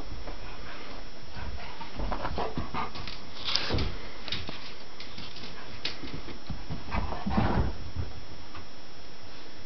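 Great Pyrenees dogs, an adult and a puppy, play-wrestling: short scattered bursts of whimpering and scuffling, the loudest about seven seconds in.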